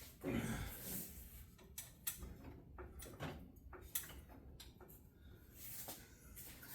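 Faint, scattered knocks and clunks of heavy shop equipment being handled, with a louder low scraping rumble about half a second in.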